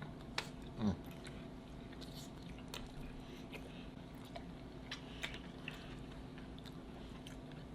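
A person chewing a mouthful of cheeseburger close to the microphone: soft, scattered wet mouth clicks and smacks, with a short low hummed "mm" about a second in.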